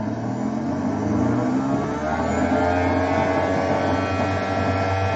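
Weapon of an Endbots Vector 3-pound horizontal spinner combat robot spinning up below full power: a steady motor whir whose tones rise in pitch over the first couple of seconds, then hold level. It sounds healthy, with nothing amiss.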